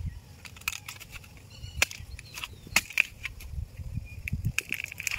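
Dry bamboo leaves and stems crackling and snapping under hand as someone works at the base of a bamboo clump: a scattering of sharp cracks.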